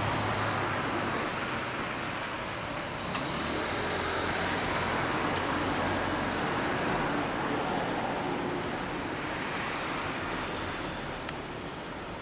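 Steady car and road-traffic noise, easing off slightly toward the end, with one sharp click near the end.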